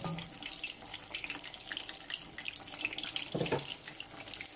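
Besan-battered fish pieces deep-frying in hot oil in a wok: a steady crackling sizzle of many tiny pops.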